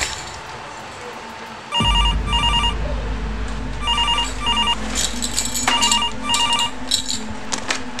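Telephone ringing in a double-ring pattern: three pairs of short warbling rings, about two seconds apart, starting about two seconds in. A steady low hum comes in with the first ring.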